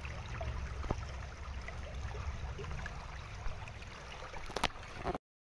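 Shallow stream trickling over stones, a steady water noise with a low rumble under it and a few sharp clicks, the loudest a little before the end. The sound cuts out to silence just before the end.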